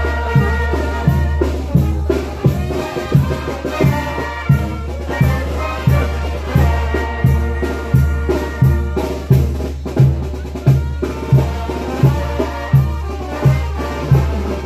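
Brass band with sousaphones playing while marching: held brass notes over a low bass line, with a steady bass drum beat.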